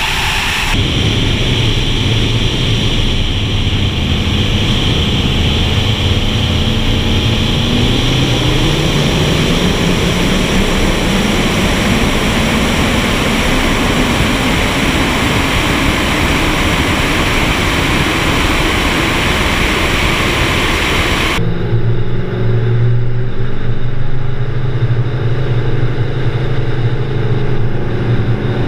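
V8 engines of a 2016 Camaro SS and a turbocharged 2000 Mustang GT running side by side at highway speed, under heavy wind rush on a camera mounted outside the car. About eight seconds in, the engine note climbs steadily for a few seconds as the cars accelerate in a roll race. Near the end it cuts abruptly to a steadier engine drone with less wind.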